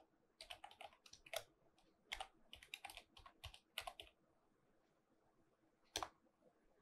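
Computer keyboard keys typed in quick, faint runs that stop about four seconds in, followed by one more single key press near the end.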